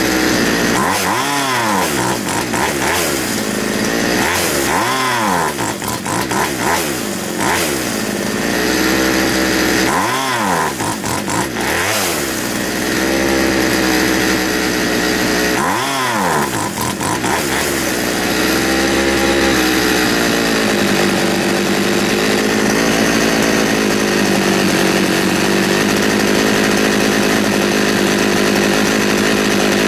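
McCulloch Mac 441 two-stroke chainsaw running, its throttle blipped several times so the pitch rises and falls quickly, then settling to a steady idle about two-thirds of the way through. It has trouble revving up, which the owner thinks could be a blocked exhaust.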